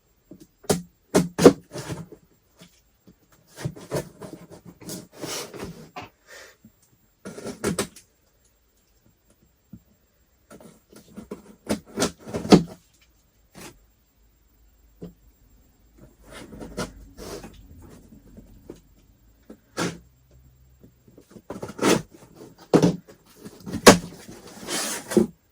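A small cardboard shipping box and its packaging being opened by hand: scattered knocks, scrapes and rustling, in bursts with quiet gaps between.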